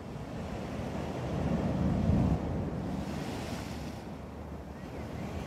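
Sea waves breaking and washing against the seawall, with wind buffeting the microphone. A low rush of wind about two seconds in is the loudest moment, followed by the hiss of a wave washing in.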